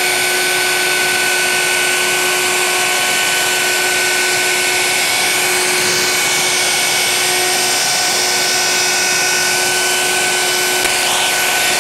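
Plunge router running at steady full speed with a constant high whine, its bearing-guided bit trimming out a bridge pocket in a guitar body along a template.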